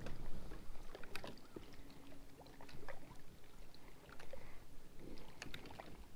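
Quiet water lapping around a small fishing boat, with scattered light clicks and knocks.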